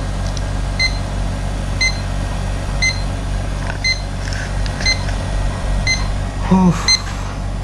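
A short electronic beep repeating about once a second over a steady low hum, from a powered-on folding camera drone sitting on the ground. A brief voice comes in near the end.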